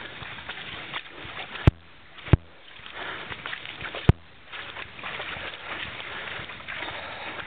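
Boots squelching and sloshing through deep trail mud, with three sharp knocks in the first half.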